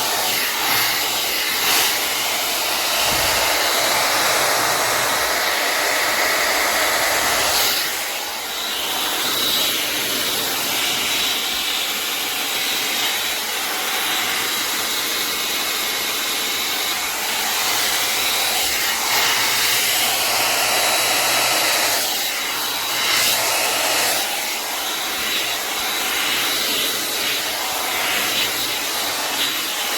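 LANDOT Plus 2.0 hot air brush running steadily: a loud rush of blown air with a faint high motor whine, its level wavering a little as the brush is worked through the hair.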